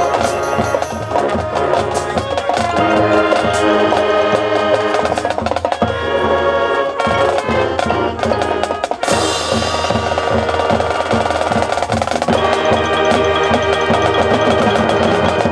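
Marching band playing: wind chords held over drumline and percussion, with a loud crash about nine seconds in. The music cuts off sharply at the end.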